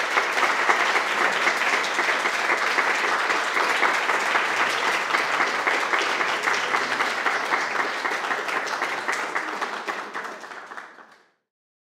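Audience applauding, a steady dense clatter of many hands clapping that dies away and cuts off near the end.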